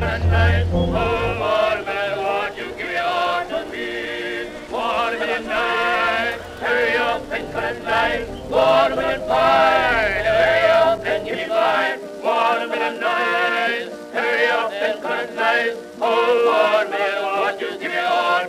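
Music: a song sung by male voices, with a low bass part that drops out about twelve seconds in.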